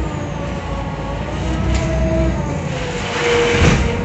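Steady low rumble of a moving vehicle, with faint tones drifting slowly in pitch and a louder hissing surge near the end.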